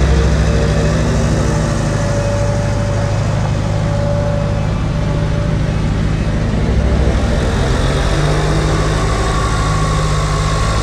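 Farm tractor diesel engines, a Massey Ferguson 291 and a Case IH 75JXM, running steadily under load while towing earth-moving drag scrapers through soil. A steady higher whine joins near the end.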